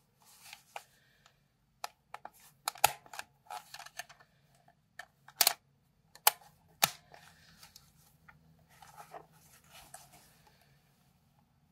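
Plastic body of a Fuji DL-95 Super compact 35mm film camera being handled: scattered sharp plastic clicks, four of them louder, among rubbing and finger noise.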